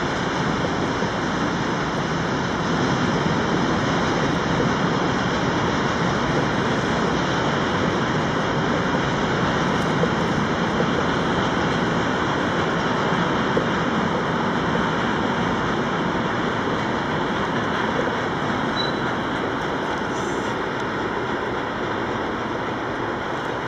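Freight train of tank wagons rolling past on the rails: a steady rumble of wheels and wagons that eases slightly near the end as the train draws away.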